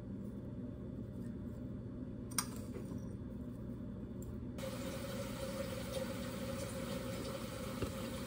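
Steady low hum of a kitchen appliance, with a single click about two seconds in, such as a metal spoon tapping a ceramic bowl. About halfway through, a steady hiss starts abruptly and keeps going.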